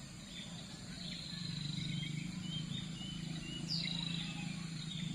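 Small birds chirping outdoors: a scatter of short chirps, with one quick falling whistle about three and a half seconds in. A steady low hum runs underneath.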